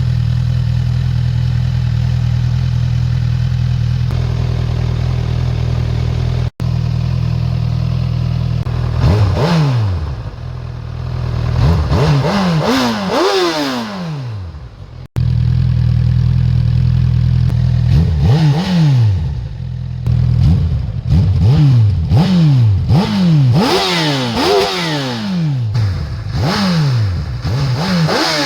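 Honda CB1000R's inline-four engine through its stock Euro 5 exhaust, idling steadily and then revved hard in repeated quick blips that rise and fall in pitch. The blips come faster and closer together in the second half.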